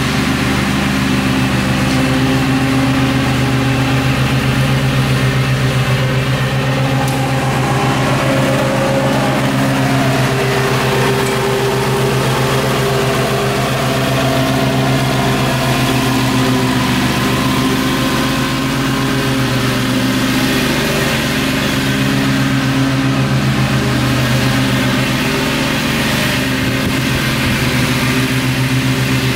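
Gravely zero-turn riding mower running steadily while mowing thick grass, its engine note shifting slightly in pitch now and then.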